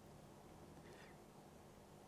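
Near silence: room tone with a faint steady hum and one faint brief sound about halfway through.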